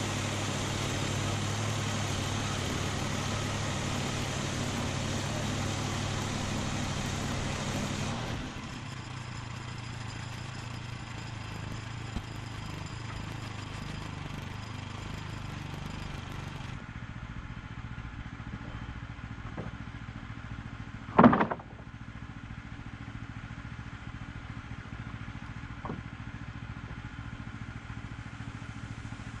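A sawmill's engine running steadily. It drops to a quieter, lower running about 8 seconds in and again near 17 seconds, and a single loud clank comes about 21 seconds in.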